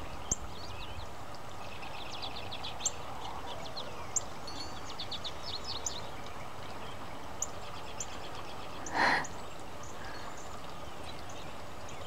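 Small songbirds chirping and twittering in quick runs of short high notes, thinning out in the second half. A steady hiss runs underneath, and a single louder, short sound comes about nine seconds in.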